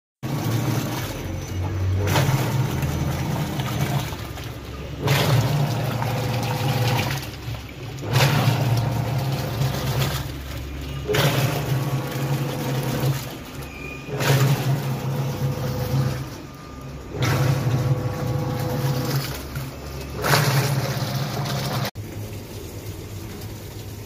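Top-loading washing machine in its wash cycle: the pulsator churns and sloshes the water in surges about every three seconds, each with a low motor hum and a short lull between. The sound cuts off abruptly near the end.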